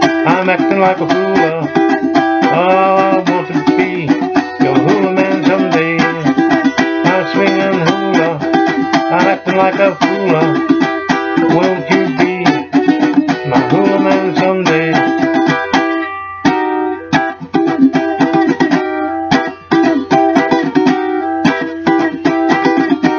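Cocobolo ukulele played solo, strummed and picked in a lively instrumental passage, the strokes spacing out in the last few seconds.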